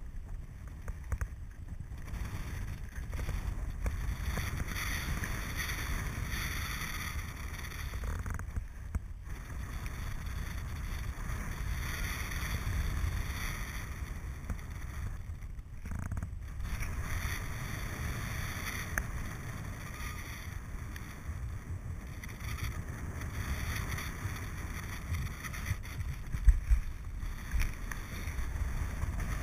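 Airflow buffeting an action camera's microphone in paraglider flight: a steady low rumble with a hiss that swells and fades every few seconds, and a few brief louder thumps near the end.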